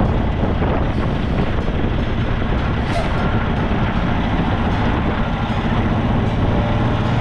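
Semi-truck's diesel engine running steadily at low revs while the truck backs slowly in a straight line.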